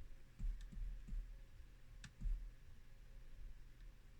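A few faint, scattered clicks and soft knocks of a lock pick and tension wrench working the pins inside a Yale pin-tumbler lock, one sharper click about two seconds in.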